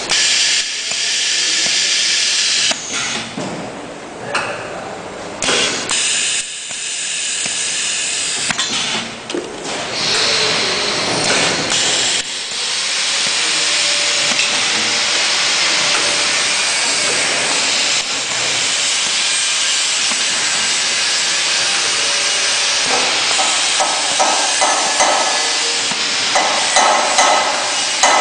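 Automatic turntable ultrasonic welding machine running: a loud, steady hiss with brief drop-outs in the first half. In the last few seconds comes a quick run of knocking, several strokes a second.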